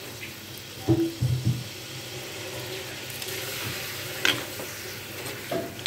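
Chicken frying in a metal wok, sizzling as coconut milk is poured in. There is a cluster of knocks on the pan about a second in and a sharper knock after about four seconds.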